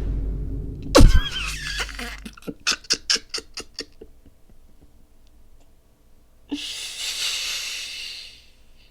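A soundboard sound effect with a loud falling pitch sweep about a second in, followed by a man bursting out laughing in a quick run of bursts, then a hissing noise near the end.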